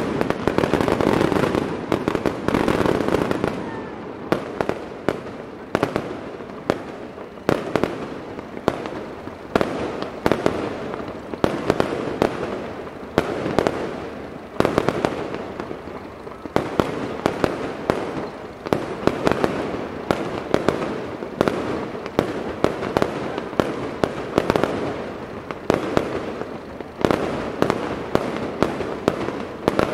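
Aerial fireworks display: shells bursting in a dense, continuous barrage of sharp bangs, several a second, the reports overlapping and echoing between one another.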